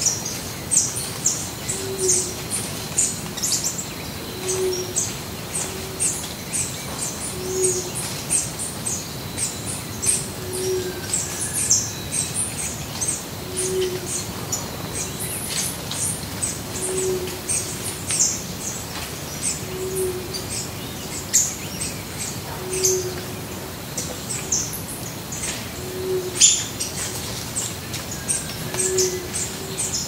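Chorus of many birds calling from the trees, with dense short high chirps and twitters. Under them, one low hoot repeats about every three seconds.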